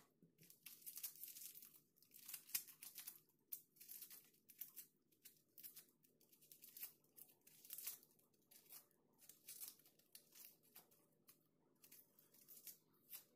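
Dry, papery onion skin being peeled off by hand: faint, irregular crackling and tearing in short rustles.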